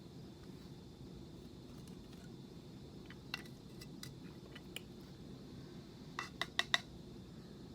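Light clinks and taps from handling a small electric blade coffee grinder with its grounds, the grinder not running, ending with a quick run of four clicks.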